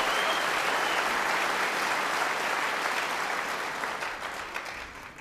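Theatre audience applauding, a dense clapping that dies away near the end.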